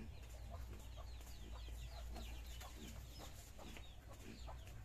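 Chickens clucking, with a quick run of short, falling chirps in the first few seconds. Short scrapes of a metal spatula against a stone grinding slab come in between.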